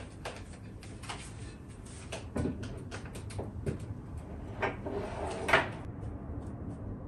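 Knocks, clicks and rustling as a computer monitor and its cables are set down and shifted into place on a desk, with the sharpest knock about five and a half seconds in.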